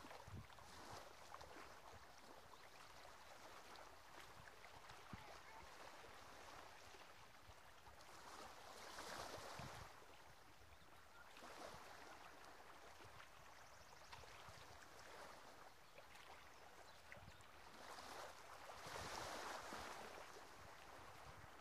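Near silence with faint small waves washing onto a sandy, stony sea shore, swelling twice: about nine seconds in and again near the end.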